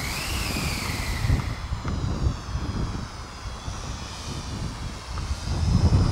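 Toy quadcopter drone's small electric motors whining: the pitch rises and then falls in the first second or so, and later a fainter whine of several tones sets in. Strong gusty wind buffets the microphone, heaviest near the end.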